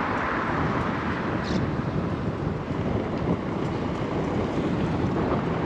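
Steady wind noise rushing over the microphone while riding a bicycle, with a brief faint high chirp about a second and a half in.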